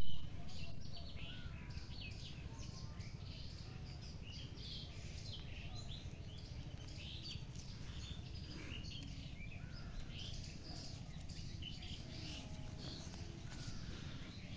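Several small birds chirping and twittering in short calls, over a steady low rumble. A brief loud bump comes at the very start.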